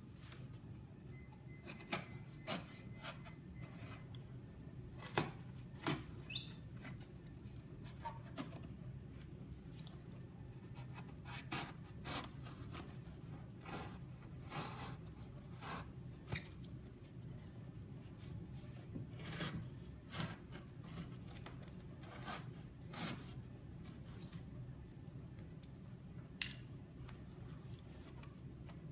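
A knife cutting through the top of a corrugated cardboard box: irregular short scrapes and crackles of the blade and the flaps being bent, with a sharper click near the end.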